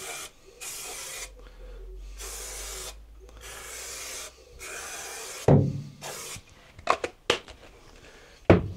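Aerosol spray adhesive can hissing in about six short bursts, each starting and stopping sharply. After that come a few sharp knocks, the loudest about five and a half seconds in and again near the end.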